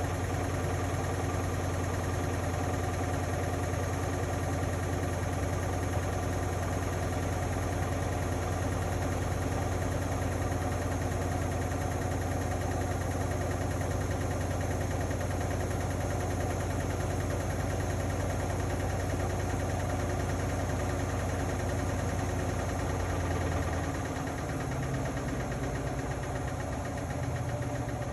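Indesit Innex BWE 91496X washing machine spinning at speed: a steady motor hum and drum vibration with a whine of steady tones above it. About 24 seconds in, the low hum drops and its pitch shifts, as the spin speed changes.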